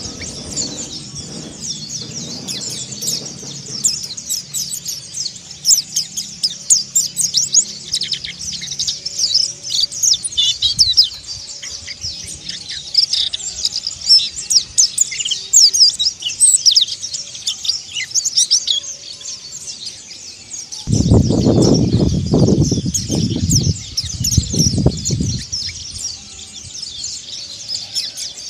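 Mountain white-eye (pleci montanus) twittering in a fast, continuous high-pitched chatter of short chirps. About three quarters of the way through, a few loud low rumbling bursts break in over the chatter for several seconds.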